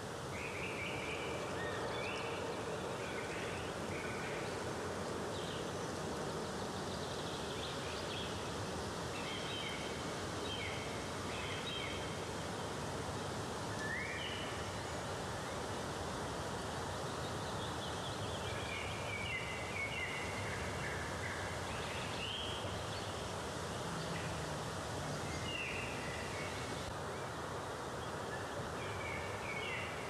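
Steady rush of a waterfall, with short bird chirps scattered over it throughout.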